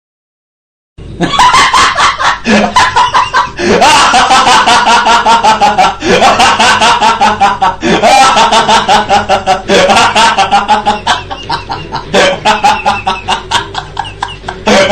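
Loud meme sound effect of rapid, pulsing cackling, starting about a second in, with a swooping pitch pattern repeating about every two seconds.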